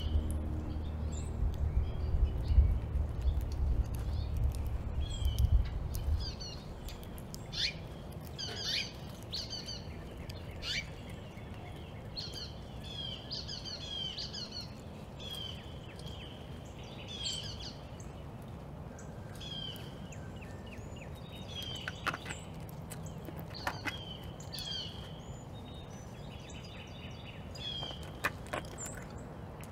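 Backyard birds chirping and calling repeatedly, many short high chirps and trills. A low rumble runs under them for the first six seconds and then stops, and a few short sharp clicks come in the second half.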